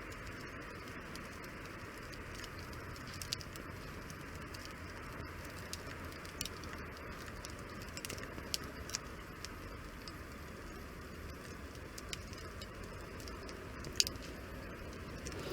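Wood campfire burning: a steady soft hiss with scattered sharp pops and crackles, the loudest pop about fourteen seconds in.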